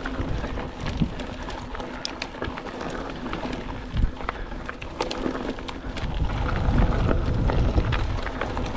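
Mountain bike riding fast down dirt singletrack: tyres crunching over the trail and the chain and frame rattling and clicking over bumps, with a low rumble of wind on the microphone swelling near the end.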